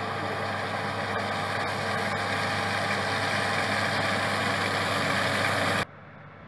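John Deere combine harvester running under load while cutting wheat: a steady engine drone with a broad rushing noise, growing slightly louder as the machine draws near. About six seconds in the sound drops sharply to a fainter, more distant machine noise.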